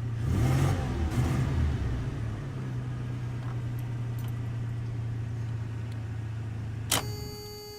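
1996 Toyota T100's 3.4-litre V6 running, louder and rougher for the first couple of seconds as it is revved, then settling to a steady idle; the truck has a misfire that cuts in under throttle like a two-step rev limiter, with no check engine light. About seven seconds in the engine is switched off with a click and a short ringing tone.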